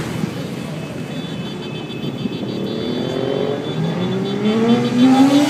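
Motorcycle engines running as a column of motorbikes rides along the street. From about three and a half seconds in, one engine's note climbs steadily as a bike accelerates toward the listener.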